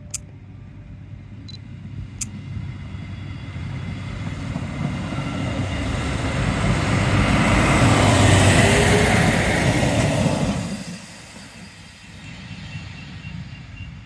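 DB Class 628 diesel multiple unit passing close by: the rumble of its diesel engine and wheels on the rails grows louder, peaks about eight seconds in, then drops off sharply near eleven seconds. Two short sharp clicks come in the first couple of seconds.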